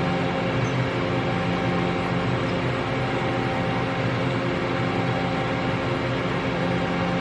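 Mori Seiki NV5000 CNC vertical machining center running under power: a steady mechanical hum with several held tones and an even hiss, unchanging throughout.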